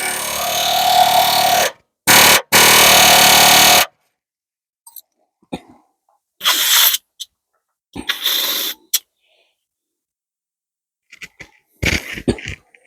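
Pneumatic air hammer firing in bursts against a snapped radius rod bush plate bolt: a long burst that stops a couple of seconds in, a second one lasting about two seconds, then shorter bursts with silence between.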